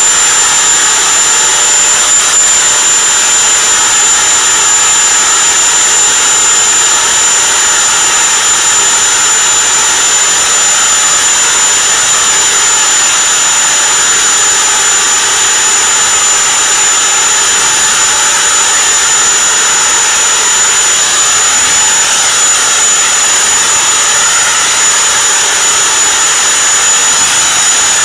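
Homemade leaf blower running steadily: a high, constant motor whine over a rush of blown air.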